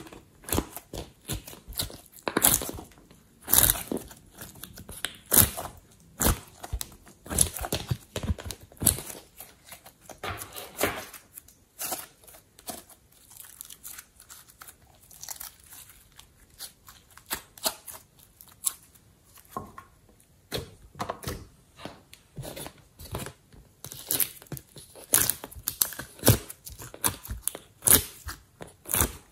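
Glossy slime with clay mixed in being squeezed and kneaded by hand, giving irregular sticky clicks and pops several times a second. It goes quieter for a stretch in the middle, then busier again near the end.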